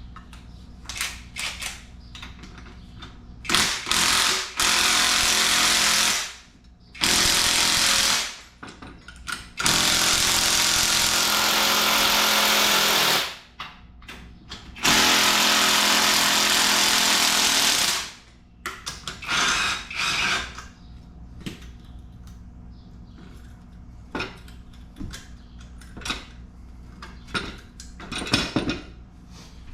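Impact wrench running in four bursts of a few seconds each, the longest about four seconds, backing off a strut spring compressor to release the coil spring on a rebuilt front strut. Short clanks and knocks between and after the bursts.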